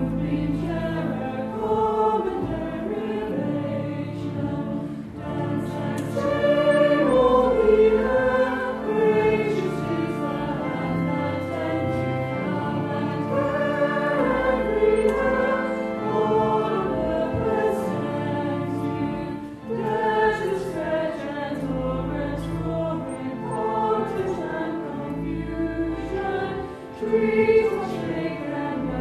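A choir singing a slow piece, with long held low notes sounding underneath.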